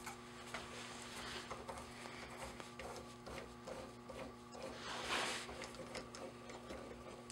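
A 1/8-inch pipe tap being turned by hand with a T-handle tap wrench into a metal plug held in a vise, worked back and forth to break the chips: faint, irregular small clicks and creaks as it cuts. A steady low hum runs underneath, and a brief rustle comes about five seconds in.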